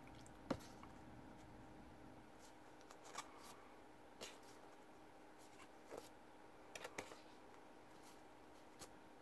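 Faint rustles and a handful of small clicks from stiff paper lobby cards being handled and swapped one behind another, over quiet room tone.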